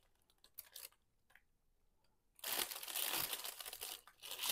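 A few faint rustles, then, about two and a half seconds in, a bag of onion bulbs crinkling steadily as it is handled.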